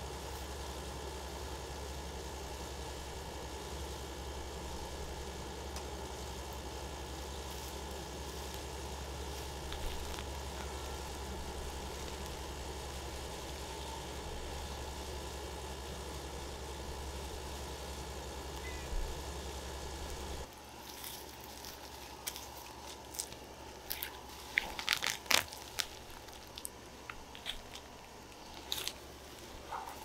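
A steady low machine hum for about the first twenty seconds, which stops abruptly. Then hands digging for potatoes in soil and dry straw mulch make irregular crunches and crackles.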